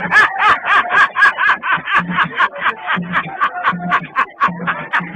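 Upbeat music: a fast run of short, high, repeated notes, about five or six a second, over a steady low beat.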